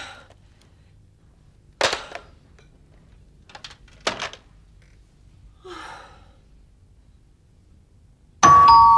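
A few sharp clunks, one as a corded telephone handset is set back down on its base, then a loud ringing chime with held tones starts near the end.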